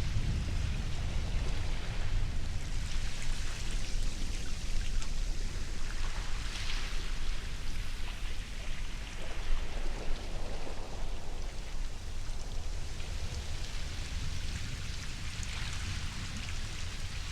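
Ocean surf: a steady rush of water over a low rumble, swelling now and then into hissing washes of breaking waves.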